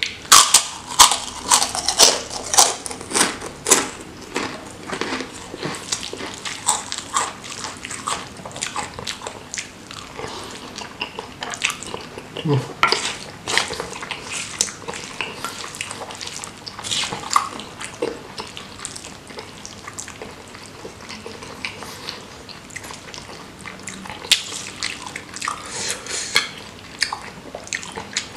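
Close-up eating sounds: loud crunching of a fried cracker for the first few seconds, then wet chewing and slurping of saucy seblak, with a wooden spoon scraping and knocking against a stone mortar.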